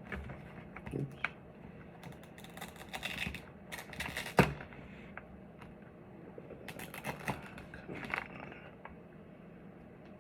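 Hands working on a motorcycle helmet's inside while fitting intercom parts: scattered rustling and small clicks, with one sharp knock about four seconds in.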